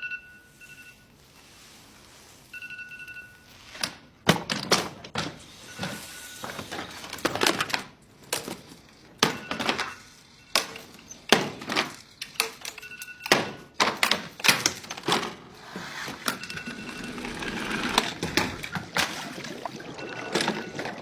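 Electronic alarm clock sounding short, high beeps, then being hit over and over with hard blows and cracking, as if it is being smashed; the beeping keeps coming back between the blows.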